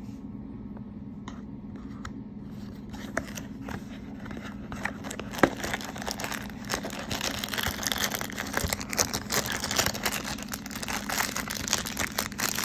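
Cardboard knife box and its packaging being opened by hand: crinkling, rustling and scraping that grow busier in the second half, with one sharp click near the middle.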